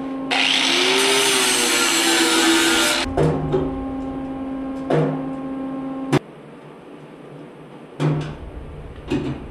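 Corded angle grinder spins up and grinds steel for about three seconds, easing a clearance on a toolbox door, then is switched off. A few knocks follow as the door is worked, with a sharp click about six seconds in.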